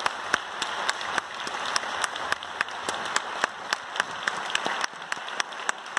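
Audience applauding: a dense patter of many hands, with one nearby pair of hands clapping sharply and evenly about three times a second.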